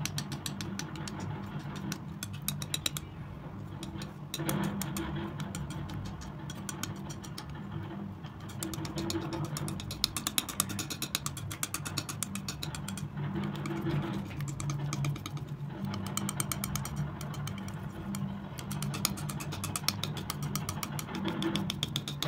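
Metal palette knife scraping and smearing thick wet acrylic paint across a smooth surface: runs of fine, rapid clicky scraping in strokes, broken by brief pauses as the knife lifts. A steady low hum underneath.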